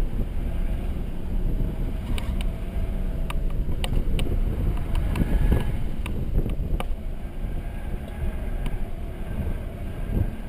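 Mercedes-Benz C300 4MATIC heard from inside the cabin while lapping a wet track: a steady low rumble of engine, tyres and wind, with scattered sharp ticks.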